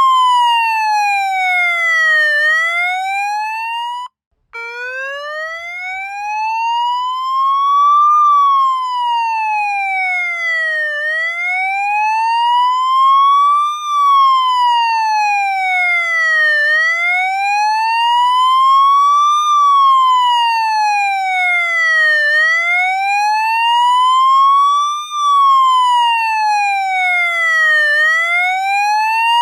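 Police siren in wail mode: one pitched tone sweeping slowly up and down, about one full rise and fall every five and a half seconds. About four seconds in it cuts out for a moment and restarts low, climbing again.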